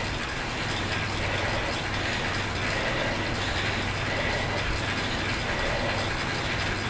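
Indoor bike trainer and chain drivetrain whirring steadily as the bike is pedalled at a fairly high cadence, about 90–100 RPM, under a hard steady load, with a faint high whine over a low hum.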